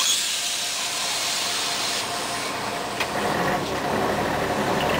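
Inside a moving Scania CN113ALB city bus on a wet road: a loud hiss of tyres and spray for the first couple of seconds. Then the low diesel engine hum builds from about three seconds in.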